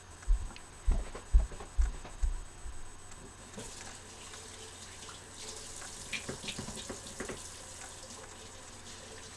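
About five dull footsteps thud across the floor, then a kitchen tap runs at the sink while hands are washed, with a few small knocks.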